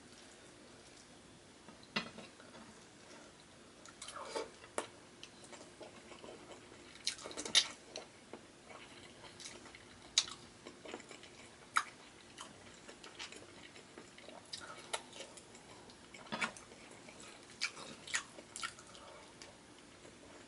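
A person chewing tender braised beef stew and rice eaten by hand, with sharp mouth clicks at irregular intervals; the loudest comes about seven and a half seconds in.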